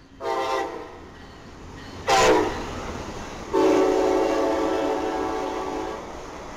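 Passenger train horn, likely an Amtrak Cascades train, sounding three times as the train passes at speed: a short blast, a brief loud blast about two seconds in, then a long blast of about two and a half seconds, over the noise of the passing coaches.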